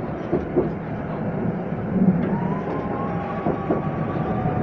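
Tatra T3 tram running, heard from inside the passenger car: a steady rumble of wheels on the rails with a few short clacks. A faint steady whine joins a little after halfway.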